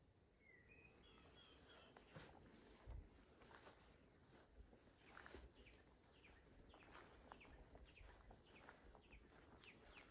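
Faint countryside ambience: a steady high insect drone, a few bird chirps about a second in, and soft irregular rustling from about two seconds on.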